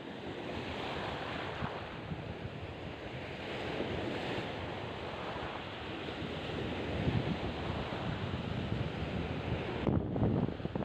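Waves washing up on a beach, swelling and easing, with wind buffeting the microphone in gusts near the end.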